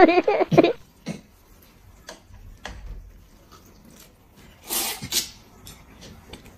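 A person slurping noodles once, a noisy burst of about half a second near five seconds in, with faint light clicks before it.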